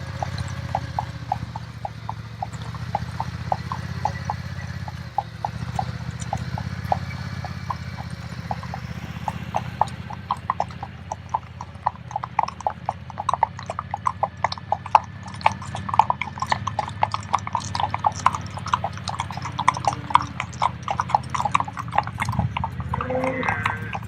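Horses' hooves clip-clopping at a walk on hard ground: a few hoofbeats at first, then many more overlapping from about ten seconds in, over a steady low rumble. A short animal call comes near the end.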